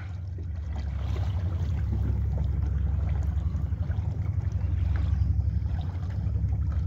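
Steady low rumble out on open lake water, with wind buffeting the microphone.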